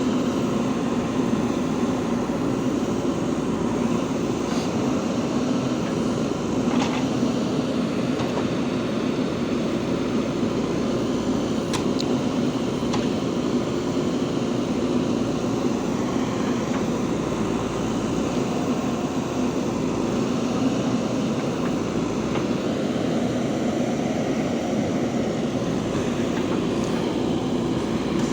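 JCB 3DX backhoe loader's diesel engine running steadily under load.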